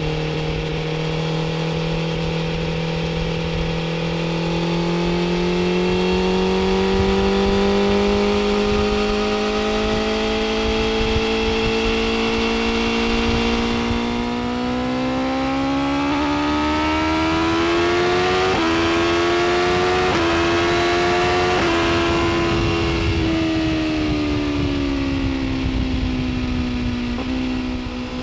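BMW S1000RR's 999cc inline-four engine pulling hard at high speed, its pitch climbing slowly and then more steeply. There are a few quick breaks in the note around the middle. The engine then eases off with the pitch falling, and picks up and climbs again near the end.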